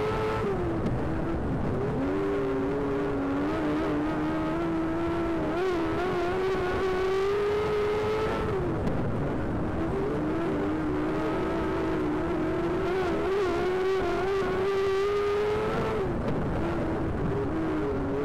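Race car engine running hard on a speedway oval, its note easing up steadily, then dropping and climbing back roughly every eight seconds as the car lifts for each end of the track.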